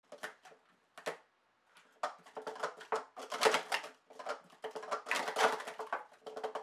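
Speed Stacks frosted plastic sport-stacking cups being rapidly stacked up and taken down on a stacking mat: fast runs of light plastic clicks and clatters, coming in quick bursts.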